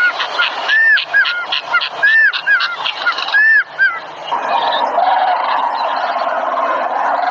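Songbirds singing: a run of repeated arched whistled notes, a few a second, switching about four seconds in to a dense, continuous chattering song lower in pitch.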